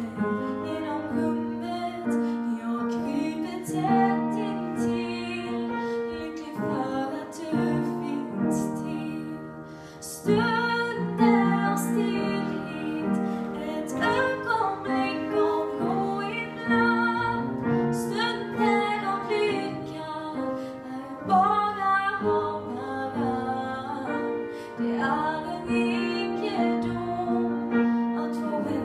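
A woman singing a slow song into a microphone, accompanied by an upright piano.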